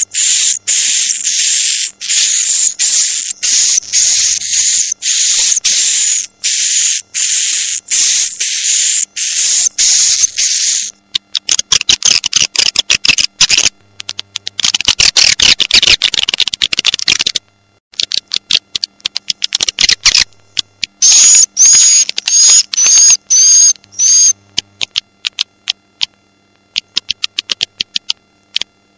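Swiftlet lure-call recording ('suara tarik'), the kind played to draw swiftlets into a swiftlet house. Harsh buzzy chirps repeat about twice a second, then give way to rapid clicking twitters, a run of short chirps with a clear high note, and sparser fast clicks near the end.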